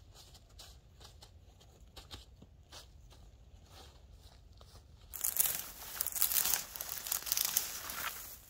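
Dry brush and grass crackling and rustling as they are pulled up and handled by gloved hands, loud from about five seconds in after a few faint scattered clicks.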